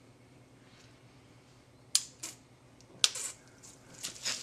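An aluminium beer can's tab cracked open with a few sharp clicks, the loudest followed by a short hiss, then irregular spraying and hissing as the beer rushes out of the can.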